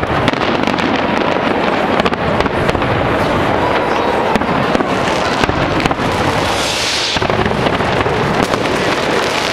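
Dense New Year's Eve fireworks: many overlapping bangs and crackling from rockets and shells going off without a break, with a brief hissing rush about two-thirds of the way through.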